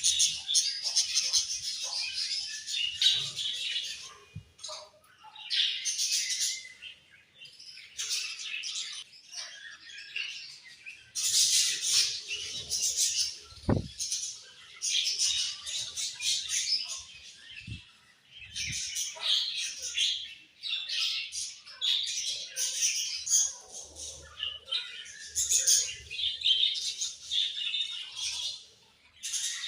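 A flock of budgerigars chirping and chattering in high-pitched bursts that come in waves of a few seconds with short lulls, and a couple of soft thumps in the middle.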